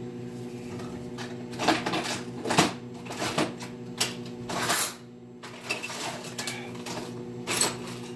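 Microwave oven running with a steady electrical hum, while things are knocked and clattered about several times during a search for scissors.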